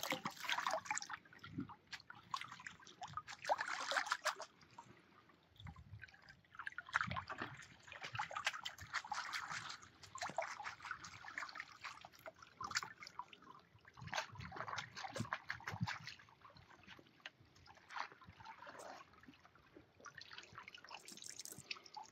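Water splashing and dripping in irregular bursts as a wet backed miner's moss mat from a sluice box is dunked and swished in a tub of water, rinsing out its gravel concentrate during cleanup.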